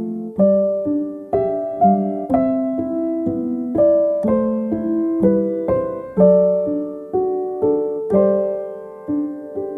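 Soft, slow piano music: gentle chords and single notes struck about twice a second, each ringing and fading.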